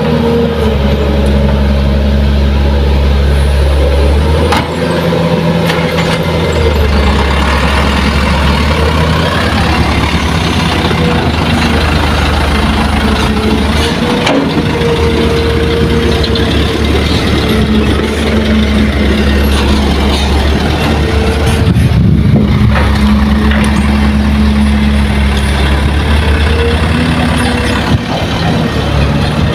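Heavy diesel engines of an excavator and a dump truck running steadily, the engine note shifting now and then as they work.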